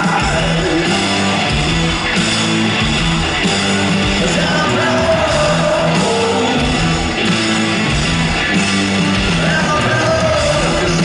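Live rock band playing loud, with a male lead singer singing into the microphone over guitars, bass and drums.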